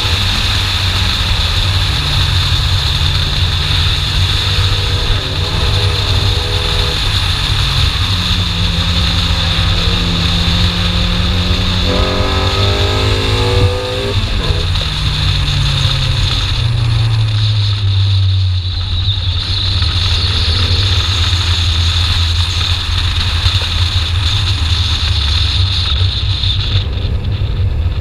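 BMW E30 318iS's 1.8-litre four-cylinder engine driven hard: its note climbs through the revs, rises steeply to a peak about halfway through, then cuts off abruptly and falls away as the car slows. A steady high hiss runs underneath.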